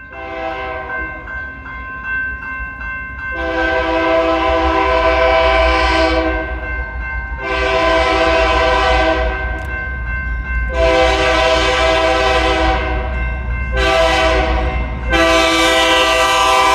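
GE diesel freight locomotive's air horn sounding a chord in a series of blasts: faint at first, then three long loud blasts, a short one and a final long one, over the low rumble of the approaching train.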